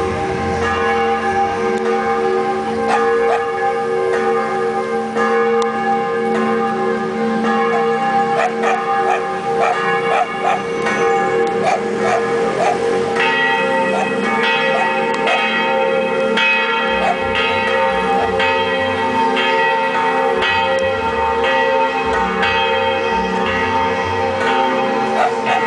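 Church bells ringing a repeated melody of overlapping strikes, with more and higher bells joining about halfway through. Dogs bark among the bells.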